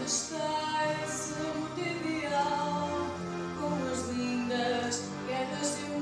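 A woman singing a song, with held notes and clear sung consonants, over steady chords from an electronic keyboard.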